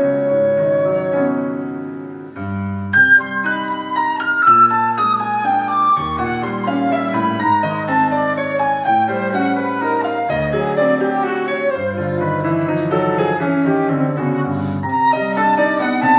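Flute and stage piano playing a duet: a held note fades over the first two seconds, then after a brief dip the music picks up with repeated falling melodic phrases over piano chords and low bass notes.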